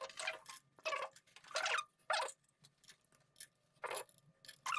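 Light, irregular clicks and scrapes of metal on metal as an oil pump is pressed onto a TDV6 diesel engine block and its bolts are started by hand, about eight short sounds at uneven gaps.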